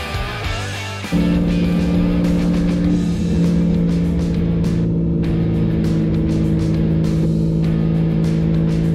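Background guitar music, then from about a second in a truck's engine and drivetrain drone at a steady pitch while driving. The drone comes in suddenly and is loud.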